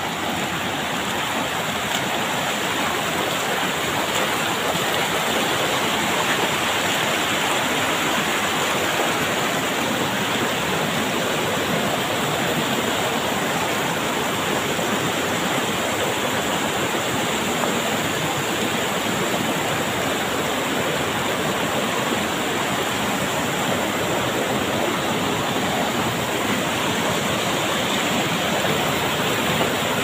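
Rocky mountain river rushing steadily over stones in shallow rapids and small cascades.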